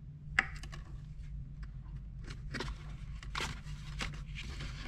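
Handling noise from a Jabra Evolve 65 headset being turned in the hand: a sharp click about half a second in, then a run of light scrapes and rustles as the microphone boom and ear cups are moved, over a steady low hum.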